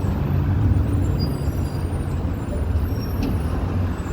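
Street traffic: a heavy vehicle's engine running with a steady low rumble, and a single click about three seconds in.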